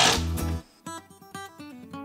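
A cordless drill driving a screw cuts off within the first half second. It is followed by background music of a plucked acoustic guitar, with single picked notes.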